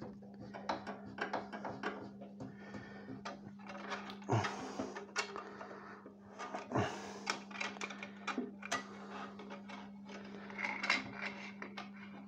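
Irregular light clicks, taps and knocks of the Gryphon diamond bandsaw's housing and blade being handled as the blade, which has come off its wheels, is refitted, over a steady low hum.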